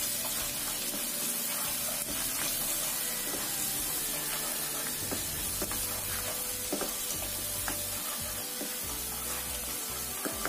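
Minced garlic and shallot sizzling in hot oil in a nonstick pan while a slotted spatula stirs them, with a steady frying hiss and a scatter of light scrapes and taps of the spatula on the pan. The aromatics are being sautéed until fragrant.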